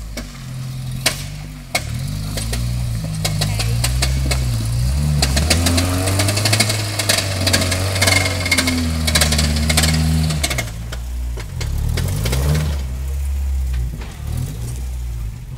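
Lifted Toyota 4Runner's engine revving up and down as it crawls over rocks. It is loudest in a long rev through the middle and eases off near the end, with sharp knocks scattered throughout.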